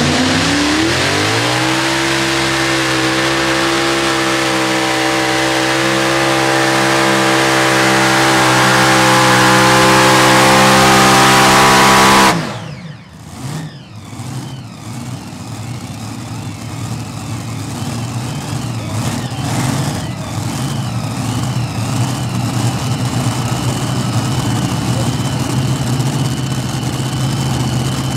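Heavy modified pulling tractor's engines at full throttle on a pull: the pitch climbs over the first two seconds, then holds steady while growing louder, and cuts off suddenly about twelve seconds in. After that a quieter engine runs steadily at idle.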